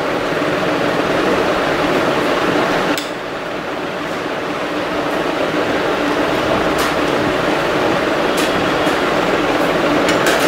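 A few light clinks of a steel spoon against a plate while a soft filling is spread on bread, over a steady background noise that drops abruptly in level about three seconds in.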